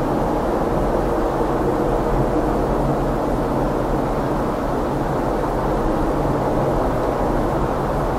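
Steady road and engine noise of a car driving at an even pace, a constant low rumble and hiss with a faint hum.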